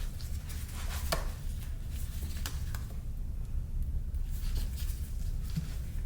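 Scattered light clicks and taps of hand tools and dirt-bike parts being handled during a teardown, over a steady low hum.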